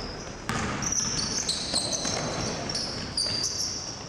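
A basketball bouncing on a hardwood gym floor as it is dribbled, with short high squeaks from sneakers on the court as players run and cut.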